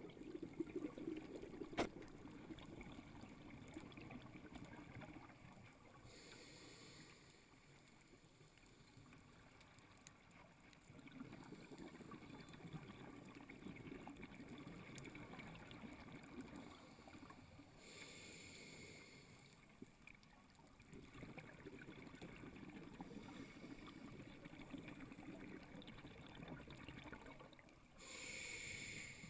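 Scuba diver breathing underwater through a regulator: three short hissing inhalations about eleven seconds apart, each followed by a long, low bubbling exhalation.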